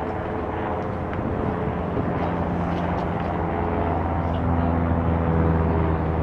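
Jet aircraft engines giving a steady low rumble, with faint tones that drift slowly in pitch and grow a little louder toward the end.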